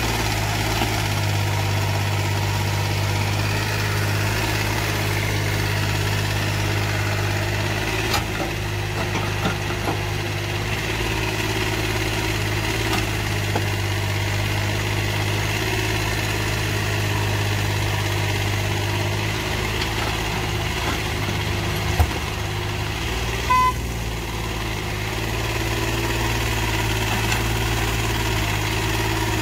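Yanmar ViO mini excavator's diesel engine running steadily as it digs and loads soil, with a sharp clank about three-quarters of the way through.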